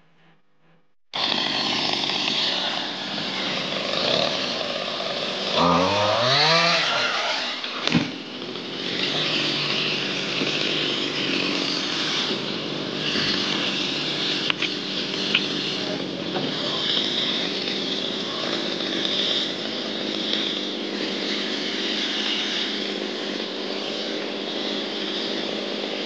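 A small petrol engine running steadily, cutting in abruptly about a second in, with a brief rising rev around six seconds in and a sharp knock at about eight seconds.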